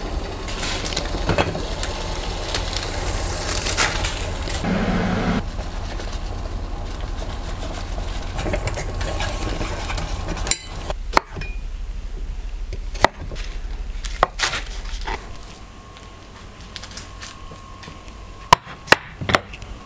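Kitchen cooking sounds: a steady hiss from a pot heating on the hob, then several sharp knocks of a wooden spoon against a saucepan and things being set down, with a close run of clacks near the end.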